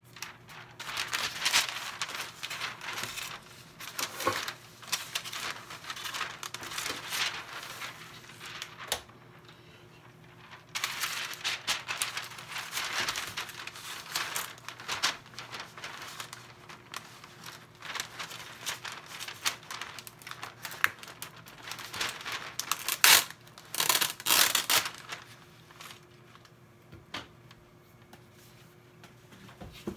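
Parchment baking paper crinkling and rustling as it is pulled from its roll, torn off and handled, in irregular bursts with short pauses.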